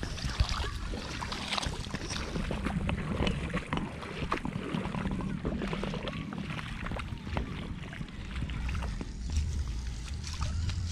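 Sea washing on the shore, a steady rush full of crackles, with wind rumbling on the microphone.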